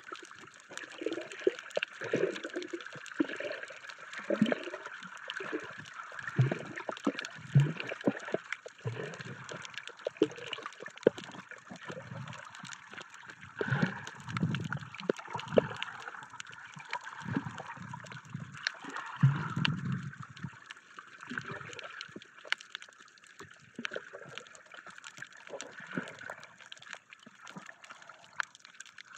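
Water heard underwater: muffled gurgling and sloshing in irregular swells, with a steady hiss and many scattered short clicks.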